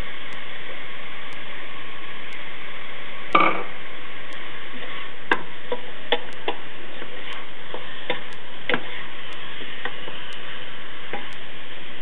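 Beef, onion and curry frying in oil in an aluminium pressure cooker with a steady sizzle, while a wooden spoon stirs and knocks against the pot in scattered short taps. The loudest tap is about three and a half seconds in.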